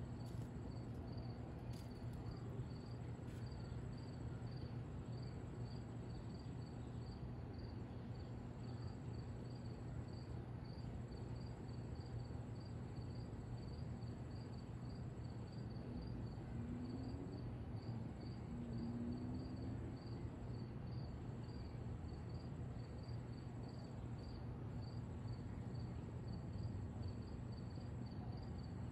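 Crickets chirping steadily, about two chirps a second, over a faint low steady hum.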